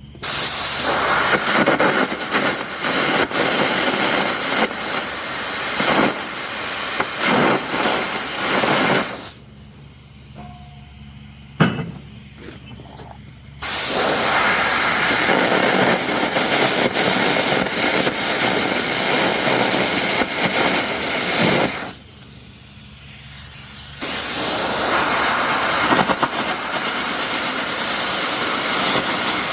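Air carbon arc gouging torch running, the arc and compressed-air blast cutting teeth off a head drum. It runs in three long passes, stopping twice: for about four seconds after the first, with a single sharp snap in that gap, and for about two seconds after the second.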